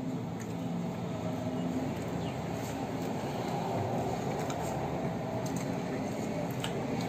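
A steady low rumble with a faint hum running through it, even in loudness throughout.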